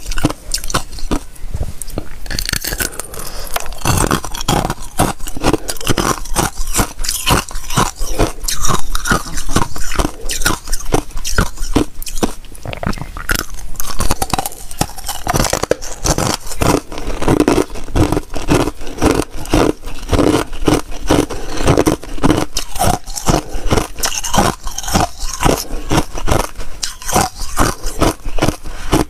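Thin sheets of ice being bitten and chewed, heard close to the microphone: a dense, continuous run of sharp, brittle crunches, several a second.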